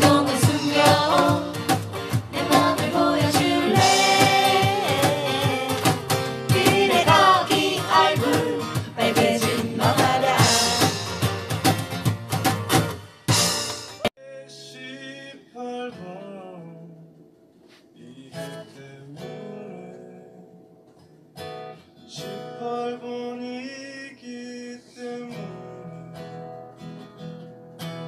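Live acoustic music: singing over two strummed acoustic guitars and cajon beats. About halfway through it cuts suddenly to a quieter, sparser piece of a solo singer with acoustic guitar.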